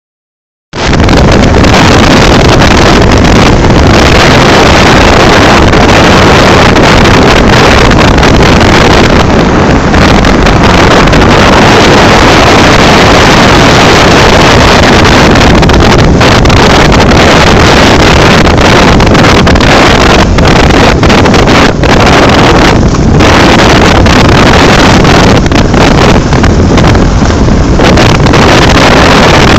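Loud, distorted wind buffeting on the microphone of a moving motorcycle at road speed, a dense rushing noise with vehicle noise mixed in. It starts abruptly about a second in.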